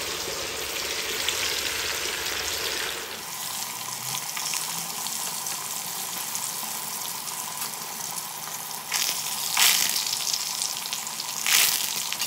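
Marinated chicken pieces frying in hot oil in a non-stick kadai: a steady sizzle. Twice near the end the spattering surges loudly and briefly as green chillies and curry leaves hit the oil.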